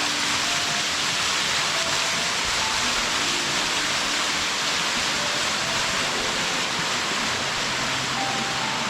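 A waterfall's water falling and rushing into its plunge pool, a steady, even roar of white water.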